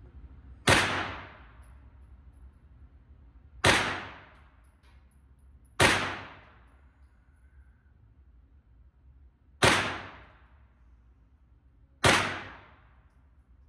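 Five single gunshots fired one at a time a few seconds apart, each a sharp crack with a short echo dying away behind it in an indoor shooting range.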